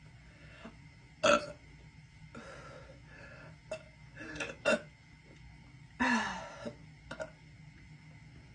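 A young woman burping several times in a row. Short loud burps come about a second in and just before five seconds, and a longer burp about six seconds in drops in pitch.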